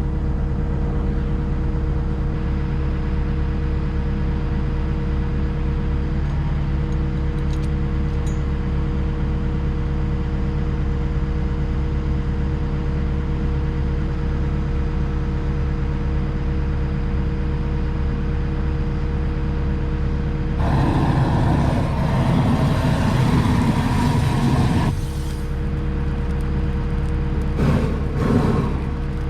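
Cat 313 excavator's diesel engine idling steadily, with a propane burner's loud hiss for about four seconds starting about 21 s in, as it is used to light a diesel-soaked hay and brush burn pile.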